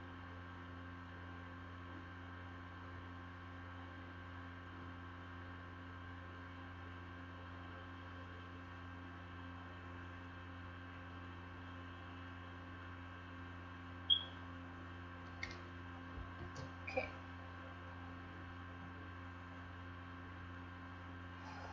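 Steady low electrical hum with several fixed tones above it. About two-thirds of the way in there is a brief high-pitched blip, then a few short clicks and knocks over the next few seconds.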